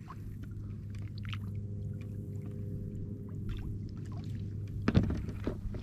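Small splashes and trickling water as a hand dips in the shallow water beside a kayak, over a steady low hum, with a single knock about five seconds in.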